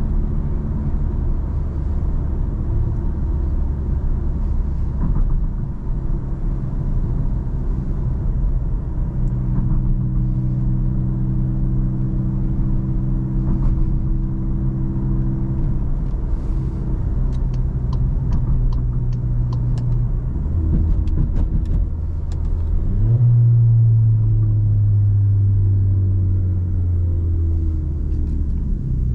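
A car's engine and tyre-and-road noise during a drive, a steady low engine drone under the road hum. About twenty seconds in the engine note climbs as the car accelerates, then holds its loudest, a strong drone that slowly eases down in pitch.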